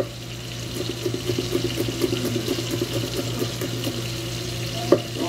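Chef's knife chopping garlic on a wooden cutting board in quick repeated taps, with one sharper knock near the end, over the steady hiss of butter sizzling as it melts in a frying pan.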